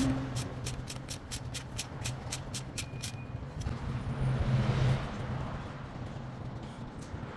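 A socket ratchet clicks rapidly, about six clicks a second, as it loosens the oil filter housing cap. The clicking stops about three seconds in and is followed by a soft scraping as the cap is turned by hand. A steady low hum runs underneath.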